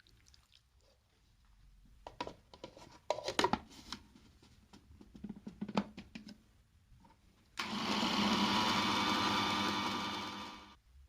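Several clicks and knocks, then a small motor runs steadily for about three seconds and cuts off.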